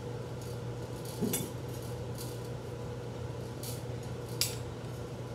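A few light clinks and knocks of kitchenware, the sharpest about four and a half seconds in, over a low steady hum.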